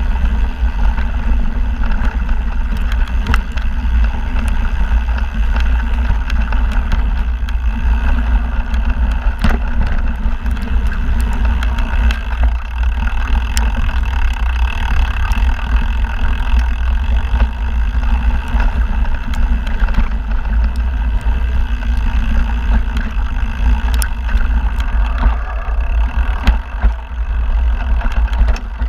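Mountain bike ridden down a dirt singletrack, heard from an on-board camera: a steady low rumble of tyres and wind on the microphone, with scattered sharp clicks and rattles from the bike.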